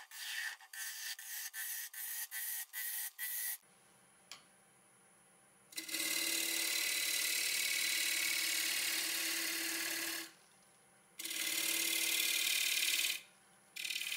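Bowl gouge cutting spalted ash on a running wood lathe. First comes a quick run of short scraping strokes, about two a second. After a brief lull come long steady cutting passes hollowing the inside of the bowl, broken twice by short pauses.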